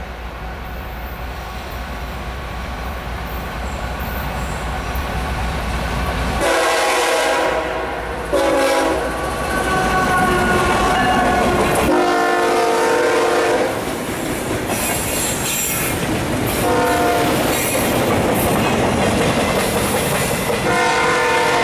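A Norfolk Southern GE ES44AC diesel locomotive approaches with a deep rumble that grows louder for about six seconds, then sounds its multi-note horn in a series of long and short blasts as it passes. Behind it, freight cars roll by with wheel clatter.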